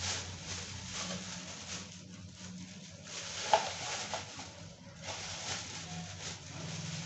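Whole spices sizzling and crackling in hot oil in an iron kadai, with one sharp click about three and a half seconds in.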